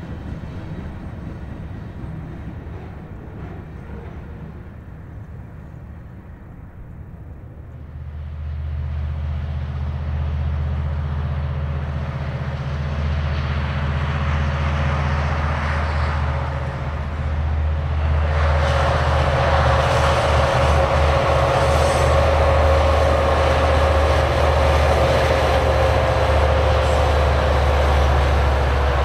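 Norfolk Southern SD80MAC diesel-electric locomotive with its 20-cylinder EMD engine running under power and growing louder as it approaches with a westbound autorack train. From about two-thirds of the way in, the rolling noise of the passing train swells and a steady whine sits over the engine's low drone.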